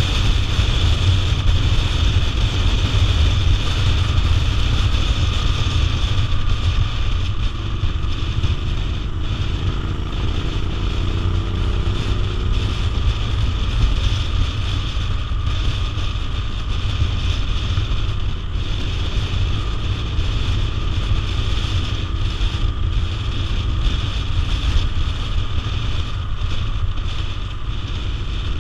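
Wind rushing over the microphone of a camera on a moving motorcycle, with the motorcycle's engine running underneath, its note rising and falling slightly now and then.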